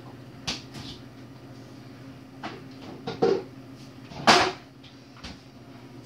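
Microwave oven running with a steady hum while it melts butter, under a handful of short kitchen knocks and clunks, like doors and things being put away, the loudest about four seconds in.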